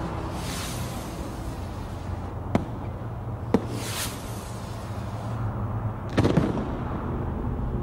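Explosion sound effects: a steady low rumble with whooshing hisses, two sharp cracks about two and a half and three and a half seconds in, and a heavier blast about six seconds in.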